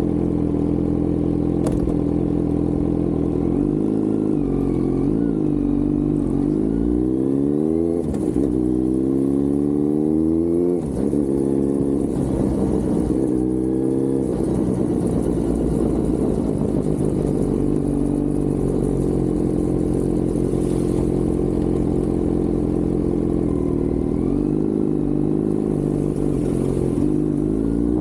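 Kawasaki Z900 inline-four motorcycle engine and exhaust under way, its pitch climbing as it pulls through the revs and dropping back at each gear change several times. It holds a steadier note through the middle, then climbs again near the end.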